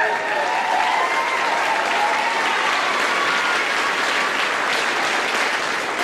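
Audience applause, steady and dense clapping throughout, with a few shouts or whoops over it in the first second or so.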